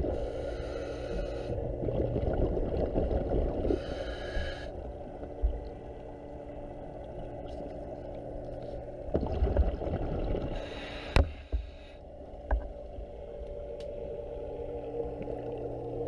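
Underwater sound of a scuba diver breathing through a regulator: bursts of hiss and gurgling exhaled bubbles every few seconds over a steady low hum, with a few sharp clicks.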